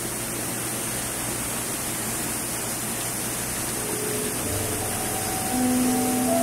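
Tap water running steadily into a stainless steel sink as a whole fish is rinsed under the stream. Faint music comes in about four seconds in.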